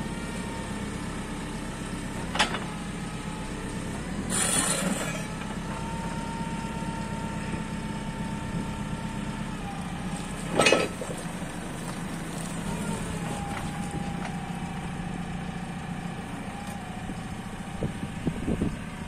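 JCB 540-140 telehandler's diesel engine running steadily while the machine creeps forward and steers, with a steady whine that shifts slightly in pitch a few times. Two sharp clanks, about two and a half seconds and ten and a half seconds in, and a short hiss a little after four seconds.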